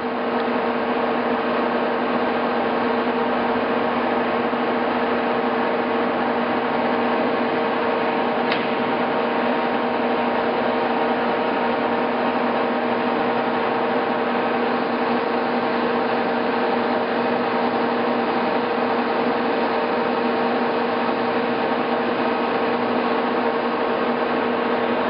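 Monarch model 1610 engine lathe running under power: a steady mechanical hum with a constant whine.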